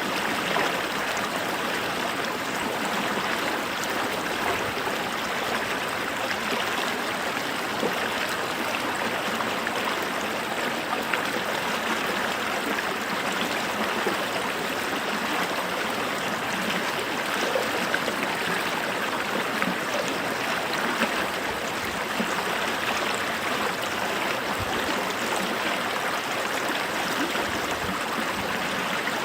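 A brook's water running steadily, an even rushing with small irregular splashes and gurgles.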